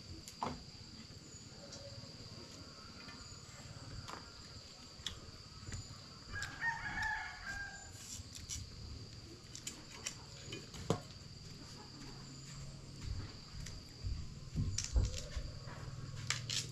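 A rooster crows once, about six seconds in, a call lasting a second or two. Around it come scattered sharp clicks and knocks of a knife working green stalks.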